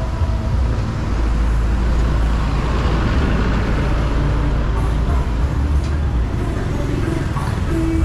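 Road traffic going by on a city street, with a deep engine rumble and a swell of passing-vehicle noise that peaks about three seconds in.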